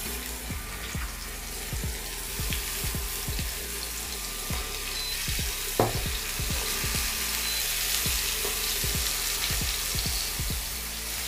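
Beef filet mignon steaks searing in very hot sunflower oil in a frying pan, a steady sizzle. A click comes about six seconds in, when the second steak goes into the pan, and the sizzle grows louder after it.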